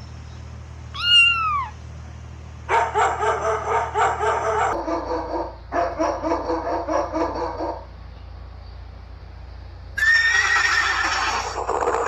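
Horses whinnying: a short falling call, then three long whinnies with a fast quavering pulse, spliced together from different recordings.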